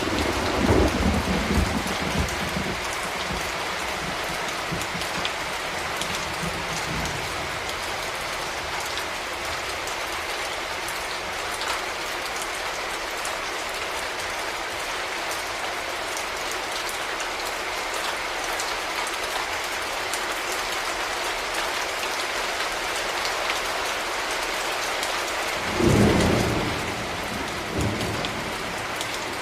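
Steady heavy rain falling, with a roll of thunder at the start that rumbles off over several seconds and another, louder rumble of thunder near the end.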